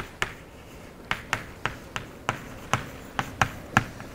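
Chalk writing on a blackboard: a string of sharp, irregular clicks and taps, about three a second, as the strokes of a short phrase are written.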